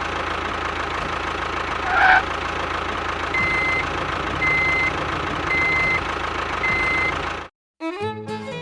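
Truck engine idling steadily, with a brief tone about two seconds in. Four reversing-alarm beeps follow, evenly spaced about a second apart. The engine cuts off suddenly near the end, and music starts.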